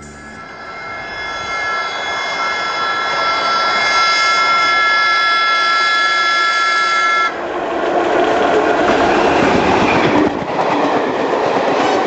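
An approaching train's locomotive sounds a long, steady multi-tone horn. The horn grows louder as the train nears and cuts off suddenly after about seven seconds. The train then rushes past at speed, its wheels rumbling and clattering on the rails.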